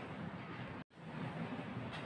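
Steady, low background noise (room tone and microphone hiss) with no distinct event, cut off completely for a split second a little under a second in, where the recording is spliced.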